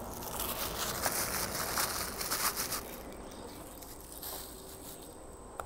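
Plastic accessory bag crinkling and rustling as it is handled, busiest in the first three seconds and fainter after.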